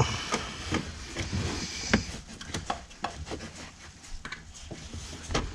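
Rustling and scraping broken by irregular light knocks, as nesting debris and loose material are pulled out by hand. There is a sharper knock right at the start and another about two seconds in.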